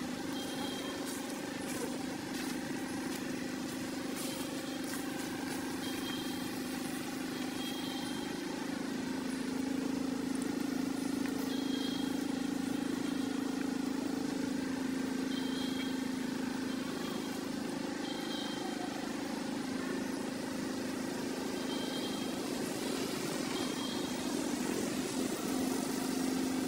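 A steady low engine hum runs throughout, with short high chirps every few seconds.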